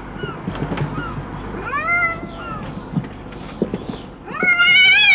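White domestic cat meowing as it is held and lowered into a box against its will: a short meow about two seconds in, then a long, loud, wavering yowl near the end. Soft knocks and rustles of handling run underneath.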